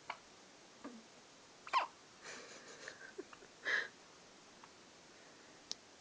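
Repeated hiccups: short, sudden hics about a second or two apart, the loudest near two seconds in and another just before four seconds, with some snuffling breath in between.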